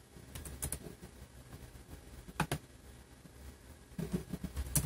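A few faint, sharp clicks from working a computer, with a quick double click about two and a half seconds in and a small cluster near the end, over quiet room hum.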